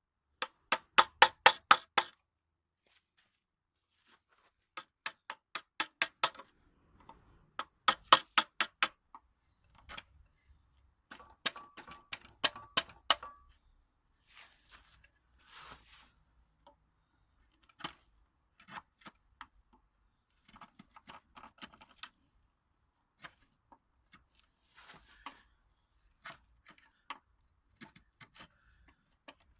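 Wood chisel being struck to rough out a wooden handle: quick bursts of six or seven sharp knocks, four bursts in the first half, followed by quieter scattered taps and scrapes.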